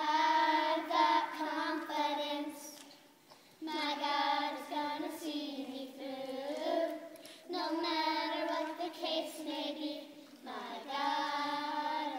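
A group of children singing together in unison, in sung phrases of about three seconds with short breaks between them.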